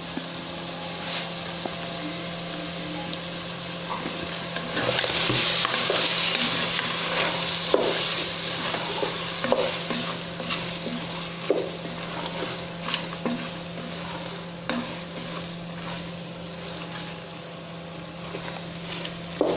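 Wooden spatula stirring chicken small intestines in a stainless steel pot, with scattered knocks and scrapes against the pot, while the food sizzles. The sizzle swells about five seconds in and eases a few seconds later, over a steady low hum.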